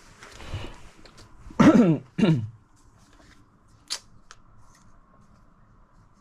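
Packaging rustling as the empty gimbal box is handled and set aside, followed by two short, loud sounds about half a second apart whose pitch drops, and a sharp click near the middle.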